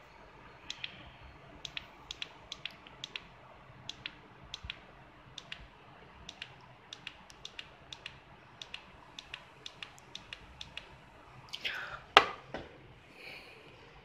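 Small plastic push-button on an LED mousepad clicked again and again, each press and release making a quick pair of sharp clicks, two or three a second, as the backlight is switched through its colour modes. About twelve seconds in there is a louder bump and scrape.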